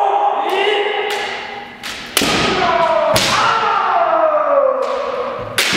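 Kendo players shouting long, drawn-out kiai, several voices overlapping and sliding down in pitch. Sharp cracks of bamboo shinai strikes and stamping feet on a wooden floor come through, the loudest about two and three seconds in.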